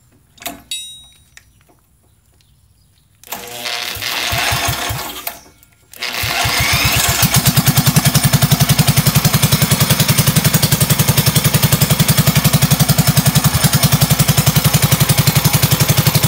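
Briggs & Stratton single-cylinder go-kart engine being spun over by a cordless drill on its flywheel nut in place of a pull cord. It catches about six seconds in and runs steadily with an even, rapid beat.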